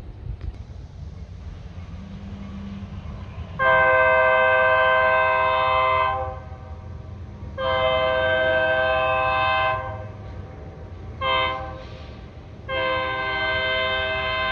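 Multi-chime air horn of an Escanaba & Lake Superior diesel freight locomotive, the lead unit ELS 502, an EMD SD40, blowing the grade-crossing signal as it approaches: two long blasts, a short one, then a long one still sounding at the end. A low diesel rumble runs underneath.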